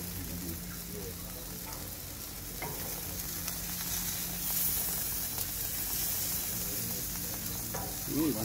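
Steak sizzling on a hot gas grill's grates, a steady hiss of fat and juices. It is turned with tongs about four seconds in, and the sizzle gets louder from then on.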